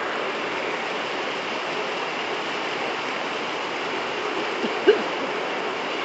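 Rainwater rushing along a flooded street, a steady hiss of flowing water. A short sharp sound cuts through once, about five seconds in.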